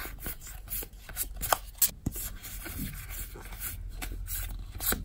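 Trading cards being slid and flicked one behind another in the hand: an irregular run of soft rubs and sharp little card flicks as a fresh pack is looked through.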